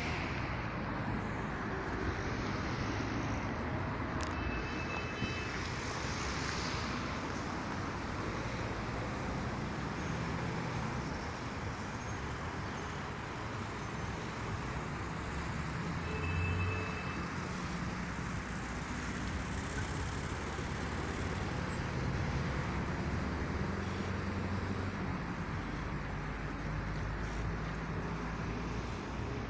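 Steady road traffic noise, cars and trucks passing, with one vehicle a little louder about halfway through.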